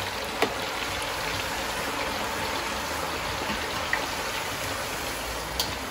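Fresh-cut potato chips deep-frying in hot oil, a steady dense sizzle, with two sharp clicks, one about half a second in and one near the end.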